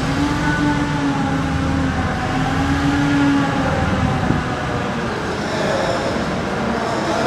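Hyster forklift engine running, a steady hum whose pitch wavers slightly up and down.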